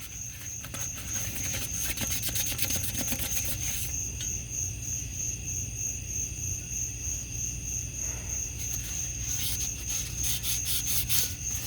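Sandpaper rubbing back and forth by hand over a primered alloy wheel, in two spells of quick scratchy strokes: one at the start lasting about four seconds, another starting about nine seconds in. Crickets chirp steadily behind it.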